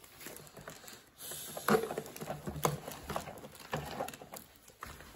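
Hard plastic toy parts clicking and knocking irregularly as hands work a plastic packaging insert out of a toy hauler's trailer, with the loudest knock about a second and a half in.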